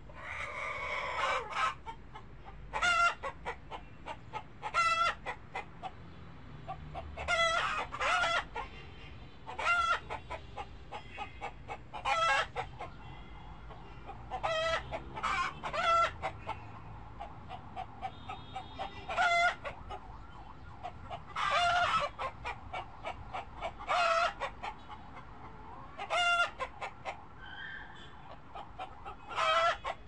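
Chickens clucking and squawking, a short wavering call every second or two over the steady background noise of the flock.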